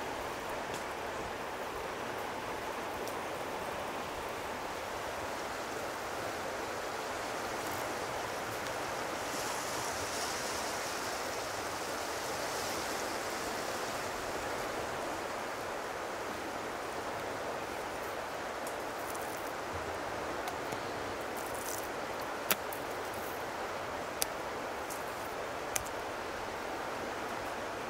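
Steady rushing of running water, with a few sharp clicks or taps near the end.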